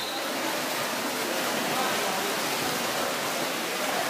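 Splashing of many water polo players swimming front crawl at speed, a steady wash of churned water.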